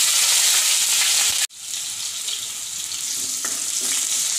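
Chopped green chillies dropped into hot oil with fried cumin and fenugreek seeds, sizzling loudly. About a second and a half in the sizzle cuts off and comes back a little quieter, with a few faint knocks as a spatula stirs the chillies.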